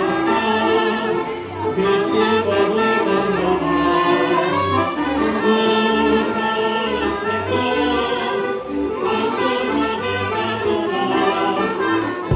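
Small street band playing a lively tune, saxophone and trumpet carrying the melody over accordion, with a regular bass beat underneath.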